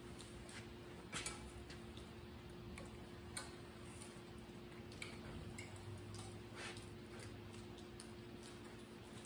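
Faint, irregular metal clicks and taps as a sheet of metal is slid into a homemade sheet metal brake and the cranks on its threaded clamping-plate bolts are turned down. A steady low hum runs underneath.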